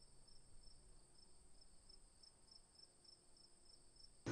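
Near silence: night-time room tone with a faint cricket chirping in a steady rhythm, about three high chirps a second.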